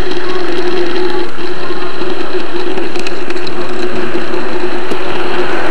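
N-scale model train running, heard at close range from the camera riding on it: a steady, loud, distorted motor whine over a continuous wheel-and-rail rattle, with a few sharp clicks.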